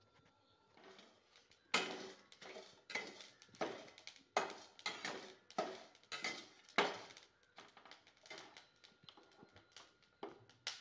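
Steel spatula scraping and stirring whole dry spices (coriander seeds, fennel, peppercorns, bay leaves, red chillies) around a stainless-steel pan as they dry-roast, in a rapid series of scrapes. The strokes come about twice a second and are loudest in the first half, then turn lighter near the end.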